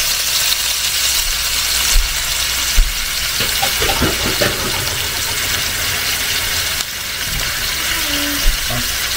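Beef chunks searing in hot oil in a stainless steel skillet: a steady frying sizzle as the raw meat starts to brown, with a few short knocks.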